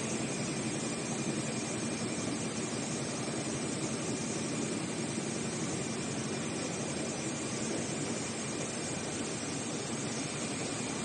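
Richpeace roll-to-roll CNC heating-wire sewing machine running: a steady mechanical hum and hiss with a faint high whine, without pauses.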